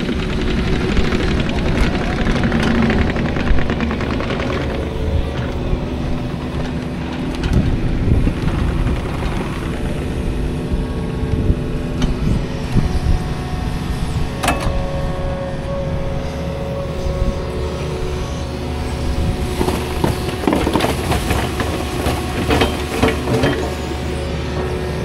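Heavy earthmoving machine's engine running steadily while it covers a culvert pipe with dirt, with scattered metallic clanks partway through and near the end.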